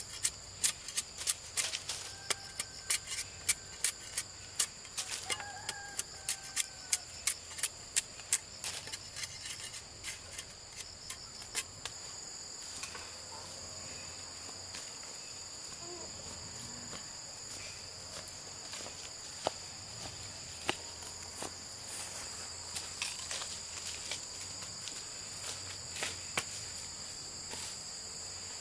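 Sharp, regular knocks of a hand tool striking wood, about two to three a second, for roughly the first twelve seconds, then only a few scattered knocks. Underneath runs the steady high buzz of crickets.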